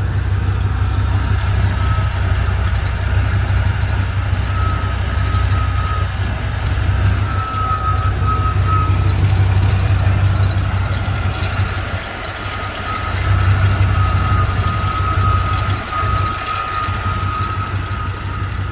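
Chevy throttle-body-injected 350 V8 running, with a high-pitched howl, a squeaky whine that swells and fades over the steady engine note. The owner places it at the front of the engine, deep in the block, and has not found its cause.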